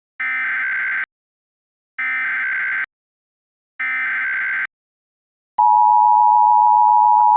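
Emergency Alert System tones. First come three identical SAME header data bursts, each just under a second of rapid two-pitch digital chirping, encoding the alert, here a Civil Danger Warning. About five and a half seconds in, the steady, loud two-tone EAS attention signal begins.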